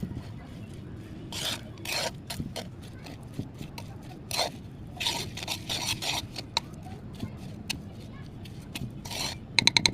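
Mud being crushed and scraped, with irregular crunches and scrapes. Just before the end comes a quick run of sharp, louder clicks.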